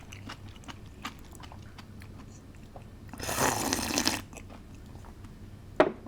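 Close-miked eating of spicy noodles with crunchy old cucumber: soft chewing clicks throughout, and about three seconds in a loud, noisy burst of eating sound lasting about a second.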